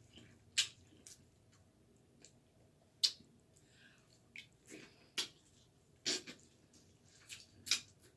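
Close mouth sounds of eating corn on the cob: sharp wet smacks and clicks every second or two, with quieter chewing between.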